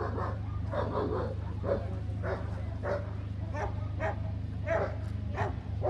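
A dog barking repeatedly, about once or twice a second, over a steady low hum.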